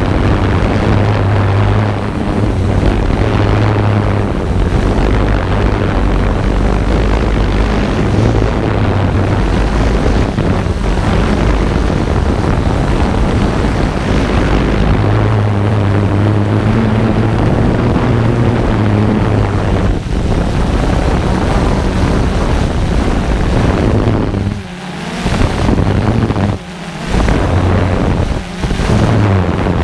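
Drone propellers humming steadily while it hovers, mixed with wind rushing over the microphone. Three times near the end the noise briefly drops away.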